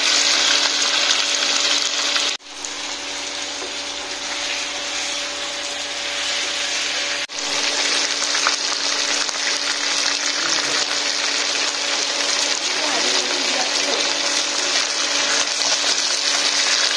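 Food sizzling as it fries in a pan, a steady hiss broken by two abrupt cuts, with a faint steady hum underneath.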